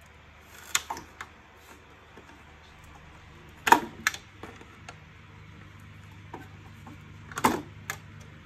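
Sharp plastic clicks and knocks from the Zelmer Cobra vacuum cleaner's housing and top cover being handled, in small clusters about a second in, near four seconds and near seven and a half seconds, over a faint steady low hum.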